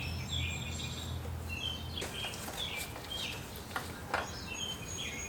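Small birds chirping over and over, with a low steady hum that stops about two seconds in and a couple of faint knocks near the end.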